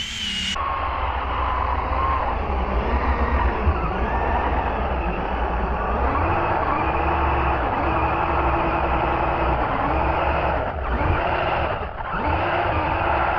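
Brushless electric motor of a Kyosho Foxx RC truck straining as its paddle tires spin and churn through deep powdery snow, its whine rising and falling with the throttle. Power drops off briefly twice near the end.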